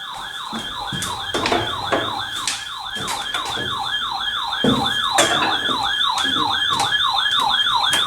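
Electronic siren-style weather alert alarm: a tone warbling up and down about two and a half times a second, with a few sharp crackles of radio static, heralding an incoming NOAA Weather Radio warning.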